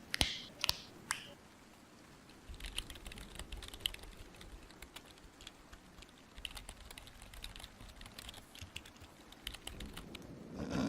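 Typing on a computer keyboard: irregular key clicks, a few louder ones in the first second. Near the end a low snore begins.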